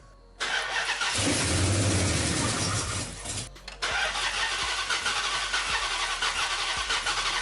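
Car engine starting and running. It comes in suddenly just after the start, cuts out briefly around three and a half seconds in, then runs on steadily.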